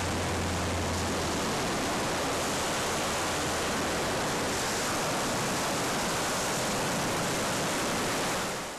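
Steady, even rush of ocean surf breaking on the beach, fading out near the end.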